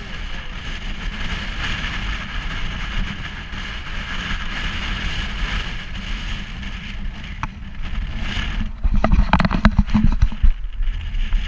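UTV side-by-side running along a rough dirt track, its engine droning steadily under road noise. About nine seconds in, a burst of loud irregular knocks and rattles as it bounces over rough ground.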